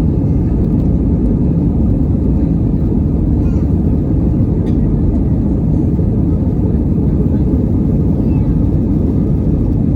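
Steady low roar of jet airliner engines, even in level with no rise or fall.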